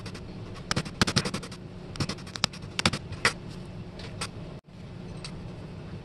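A small hammer tapping brass discs onto a metal shaft: a quick run of sharp metallic taps about a second in, then a few single taps over the next two seconds, over a steady low hum.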